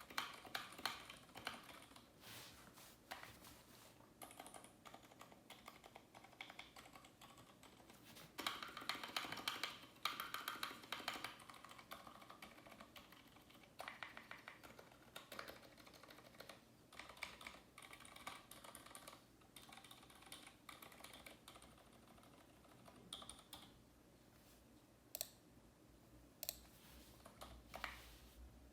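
Typing on a keyboard with mechanical switches: a steady run of key clicks, with a denser flurry about a third of the way in and sparser single keystrokes near the end.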